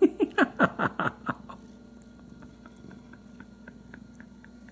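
House cat giving a quick run of about eight short calls, each falling in pitch, over the first second and a half, then going quiet.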